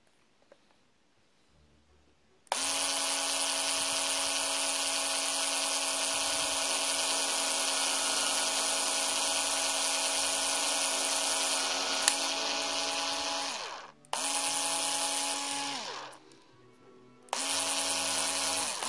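Low-speed Bosch cordless screwdriver turning a thin drill bit in a keyless hex-shank chuck adapter, boring into a thin wooden stick: a steady motor whine that starts a couple of seconds in and runs for about eleven seconds, then two shorter runs of about two seconds each, its pitch sagging as each run stops.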